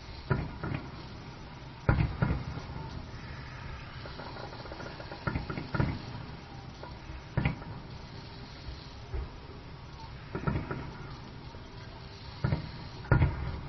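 Fireworks shells bursting in a display: about a dozen sharp booms at irregular intervals, several in quick pairs, each followed by a short echoing tail.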